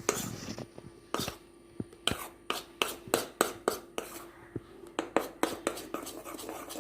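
A spoon stirring baking powder and baking soda into a little milk in a small bowl, clicking against the sides about two or three times a second.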